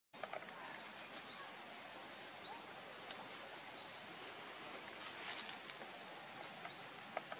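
Forest insects droning steadily at a high pitch, with short rising chirps heard about four times over it.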